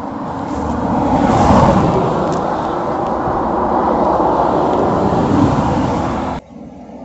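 A car passing by, its road noise swelling about a second and a half in and holding steady before cutting off suddenly near the end.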